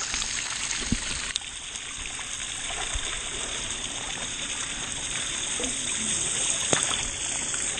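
Above-ground pool spray fountain shooting an arc of water that splashes steadily onto the pool surface, with a few light ticks.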